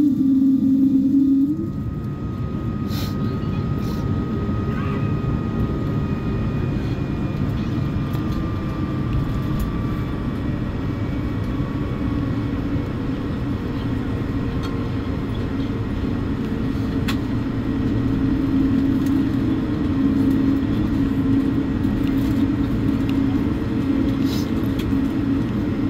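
Cabin noise of an Airbus A220-300 taxiing onto the runway: a steady rumble and low hum from its Pratt & Whitney geared turbofan engines and the rolling airframe, with a faint high whine that slowly falls in pitch. A louder steady tone stops about a second and a half in, and the noise grows slightly in the second half as the jet lines up.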